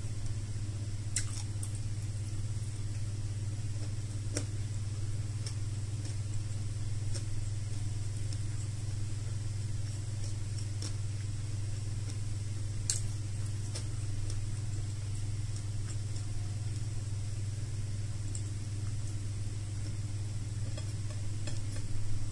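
A steady low hum runs under everything. Over it come a few faint, sharp clicks and smacks of someone chewing and eating by hand, the clearest about a second in, four seconds in and thirteen seconds in.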